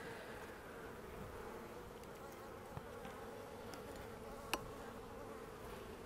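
Honey bees buzzing over an opened hive: a faint, steady hum. A single sharp click sounds about four and a half seconds in.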